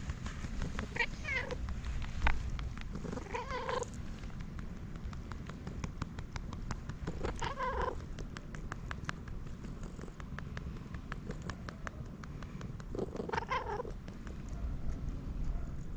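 Grey-tabby-and-white cat giving four short, pigeon-like cooing calls while being patted quickly on the lower back, a sign that it is enjoying the pats; a run of quick light taps from the patting sits between the calls over a steady low rumble.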